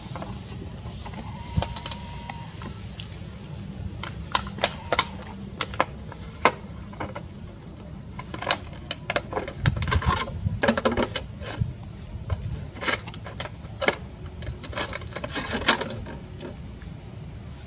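Empty plastic water bottle crackling and clicking in irregular bursts as a young macaque handles it, over a steady low rumble.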